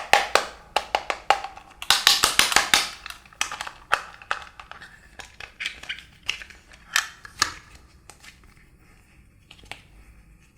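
Slime being pressed and squeezed by hand, giving quick crackling clicks and pops that are densest about two to three seconds in, then thin out and fade near the end.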